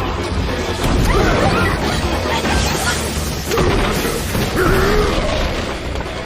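Anime fight-scene soundtrack: music under a run of crashes and impacts, with a few short vocal cries.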